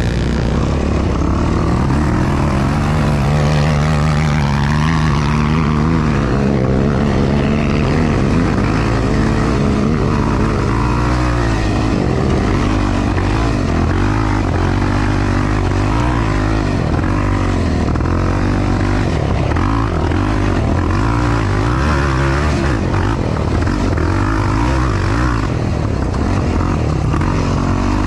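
Yamaha YFZ450R ATV's single-cylinder four-stroke engine, heard onboard while racing off-road. It runs hard throughout, its pitch rising and falling again and again as the throttle is worked.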